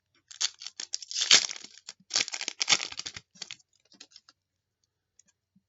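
A trading-card pack wrapper being torn open and crinkled by hand: a run of short rustling tears over about three seconds, then a few faint clicks as it goes quiet.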